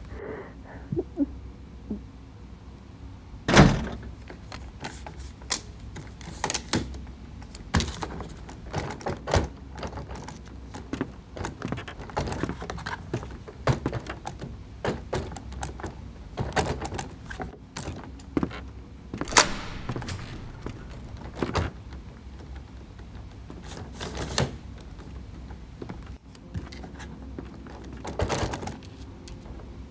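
Scattered thuds, knocks and clicks of a bag and doors being handled, over a low steady hum. The loudest thumps come about four seconds in and about twenty seconds in.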